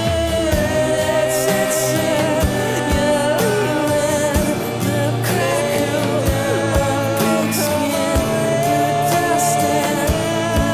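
A song playing: a singing voice over sustained instruments and scattered drum hits.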